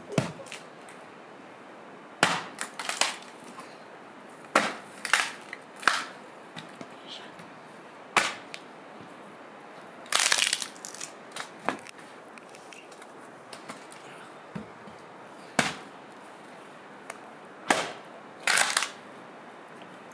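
A small axe chopping a dry, gnarled log for firewood: sharp single blows at irregular intervals, sometimes two or three close together, with pauses of a few seconds between.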